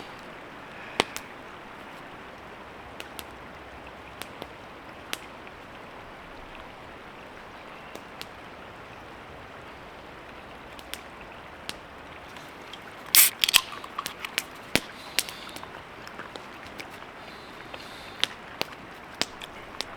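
Campfire crackling: sharp, scattered pops over a steady hiss, with a quick run of pops about two-thirds of the way through.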